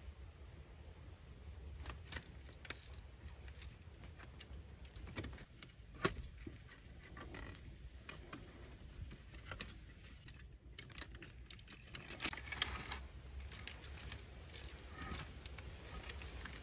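Light, scattered clicks, taps and rattles of hands working on a door of lashed wooden sticks, with one sharper knock about six seconds in and a busier run of clicks a little later.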